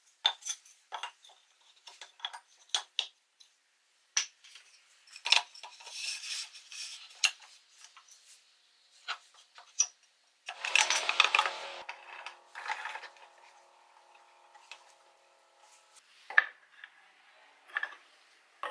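Pine door-frame pieces and panel being handled and fitted together on a wooden workbench: a string of wooden clicks and taps. About ten seconds in, a longer scraping clatter as the steel pipe clamps are moved, leaving a metallic ring that dies away over a few seconds; a few more taps near the end.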